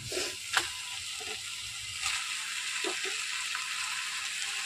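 Onion-and-capsicum masala sizzling in a kadai as chunks of cut idli are dropped in off a slotted spoon, with a few soft knocks of the spoon against the pan.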